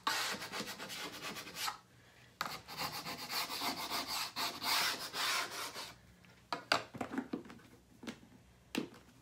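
Plastic scraper scraping dried chalk paste off a chalkboard in two long spells of strokes, then a few sharp clicks near the end.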